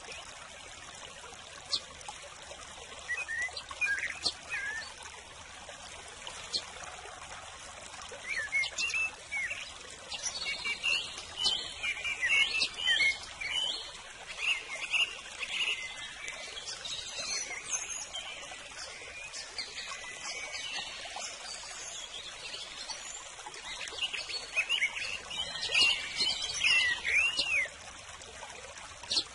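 Steady trickling water with small birds chirping over it. The chirping is sparse at first, busiest from the middle onward, and busy again near the end.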